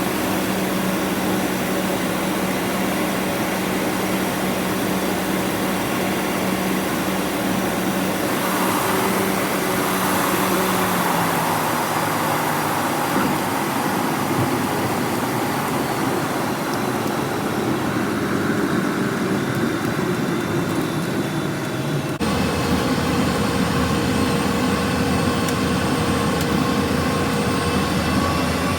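Steady drone of a small propeller aircraft's engine, with its low hum dropping slightly in pitch about a third of the way in and the sound changing abruptly about three-quarters through.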